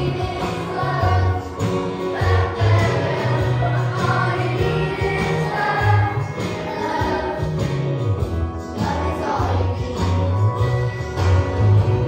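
A group of children singing a song together over a recorded backing track with a steady, moving bass line.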